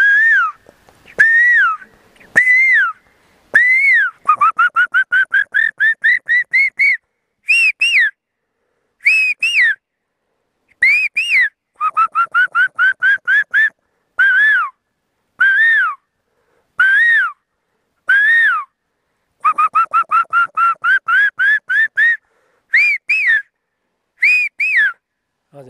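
A man whistling by mouth to imitate the call of the bird that says 'kafal pakyo', the Indian cuckoo. Phrases of arched whistled notes alternate with quick runs of short notes that climb in pitch, with brief gaps between phrases.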